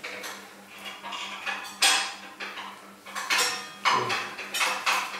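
Plastic cling film crinkling and rustling in several short bursts as it is twisted and knotted tight around a foie gras roll, over a faint steady hum.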